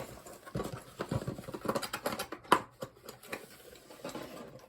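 Rustling, scraping and clicking as the plastic parts of an indoor antenna are handled, with one sharp click about two and a half seconds in.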